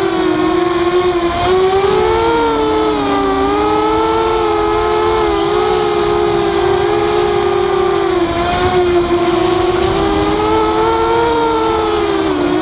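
Walkera F210 racing quadcopter's brushless motors and propellers whining in flight, the pitch wavering up and down as the throttle changes.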